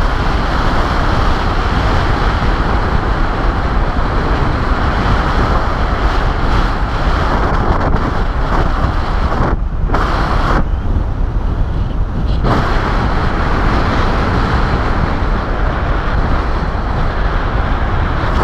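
Wind from paraglider flight buffeting the camera microphone: a loud, steady rush of noise with a strong low rumble. The higher hiss drops away for a couple of seconds about ten seconds in, then returns.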